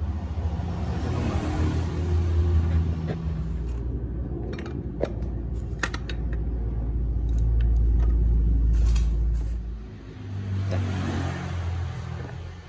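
A low, steady rumble of a motor vehicle engine running nearby, with a few sharp metallic clicks as a camshaft is handled and set into an aluminium cylinder head.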